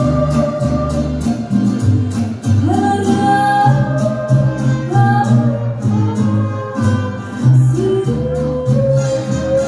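A woman singing a song over band accompaniment with bass, guitar and a steady drum beat, holding a long note at the start and rising into another long note near the end.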